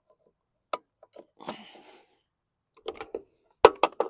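Lawn mower parts being handled and fitted back together: scattered clicks and knocks, a brief scrape or rustle around the middle, and three loud sharp clacks near the end.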